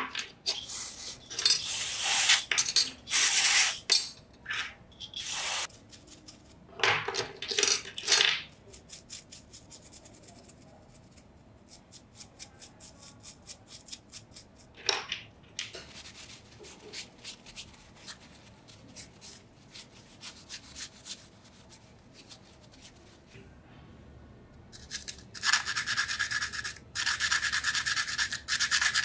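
Abrasive rubbing and scraping of a part being sanded by hand, in irregular bursts of strokes, with a run of quick, even strokes in the middle and a steadier, denser rasping stretch near the end.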